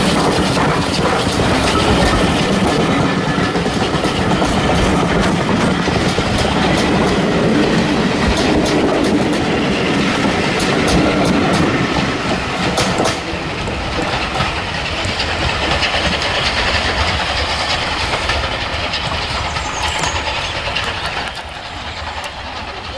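Steam-hauled train passing close by, its carriage wheels clicking rapidly over the rail joints. The sound drops away about halfway through and fades further near the end as the train moves off.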